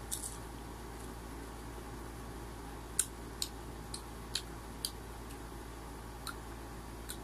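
Eating crisp unripe green mango: a handful of short, sharp crunches and clicks, bunched mostly about three to five seconds in, over a steady background hiss.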